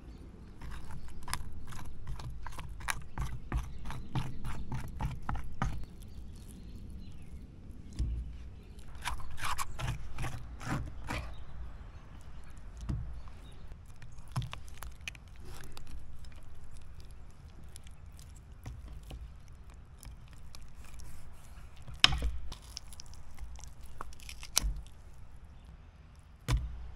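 Steelhead trout being cleaned on a wooden cutting board: a run of quick scraping and cutting strokes, another cluster about nine seconds in, then knife cuts through fish bone and a few sharp knocks on the board.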